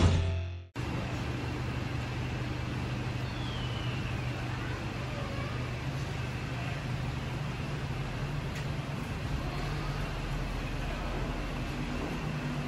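Intro music cuts off in the first second, then a Yamaha WR250X's 250 cc liquid-cooled single-cylinder four-stroke engine idles steadily and evenly.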